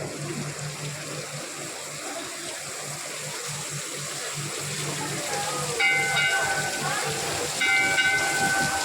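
Crowd murmur over a steady low hum. Near the end come two brief, high, whistle-like tones, each about a second long.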